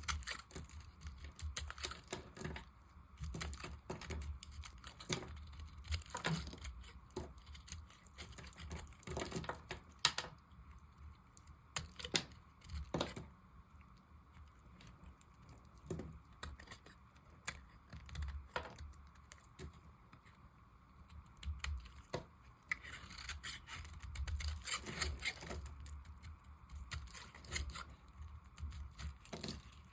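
A knife cutting and carving dry soap: an irregular run of crisp clicks and scrapes as the blade cracks through the hard bar.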